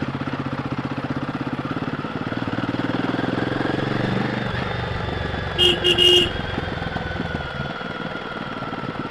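Royal Enfield Guerrilla 450's single-cylinder engine running through its stock exhaust under way, its note dropping about four seconds in. A horn beeps three times in quick succession a little past halfway.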